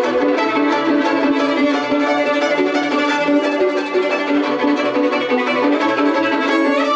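Two violins playing a fast tune, one bowed in a quick run of short notes.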